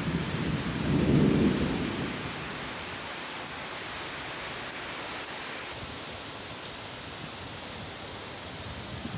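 Steady hiss of heavy rain, with a low rumble of thunder in the first two seconds, loudest about a second in.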